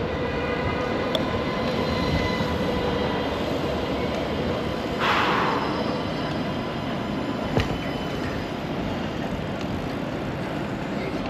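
Light-rail tram running past close by on its tracks, over steady rushing noise from riding alongside. A thin whine fades out over the first few seconds, and a short hiss comes about five seconds in.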